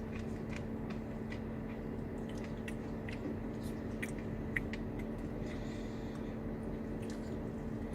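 Someone eating a spoonful of soft-serve ice cream with cookie pieces: small scattered clicks and chewing sounds over a steady low hum.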